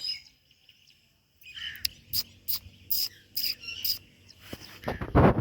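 Indian ringneck parrot giving a run of short, sharp chirps, about three a second, after a second of quiet, then a louder harsh burst near the end.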